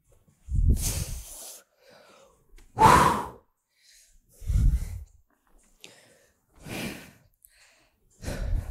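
A woman breathing hard through a set of dumbbell reps: about five loud breaths in and out, roughly two seconds apart.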